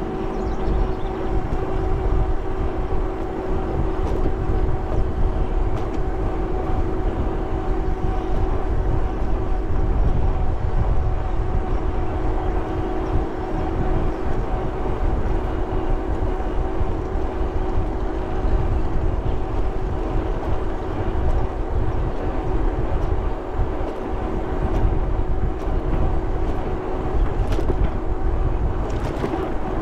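Fat-tire electric bike riding at a steady speed: a steady, even hum holding one pitch, over a low rumble of wind on the microphone.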